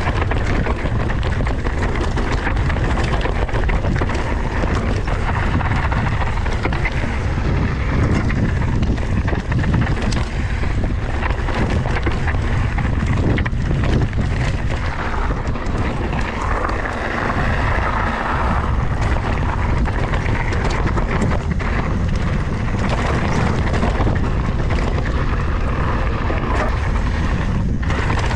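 Wind buffeting an action-camera microphone on a mountain bike ridden fast down a dry dirt trail, with the tyres rolling over loose gravel and frequent small clicks and rattles from the bike over bumps.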